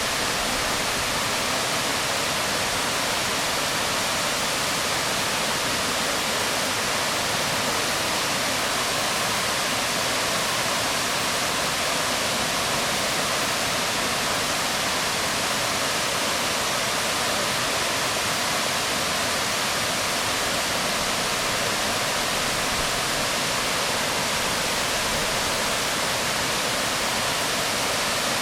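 Waterfall splashing onto rocks: a steady, even rush of water.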